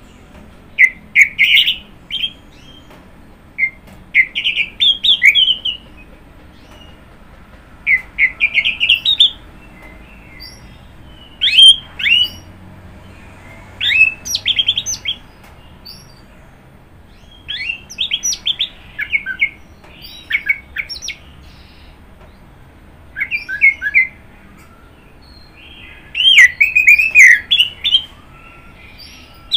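Orange-headed thrush (anis merah) singing: short, varied phrases of quick rising and falling whistles, each a second or two long, with pauses of a couple of seconds between them.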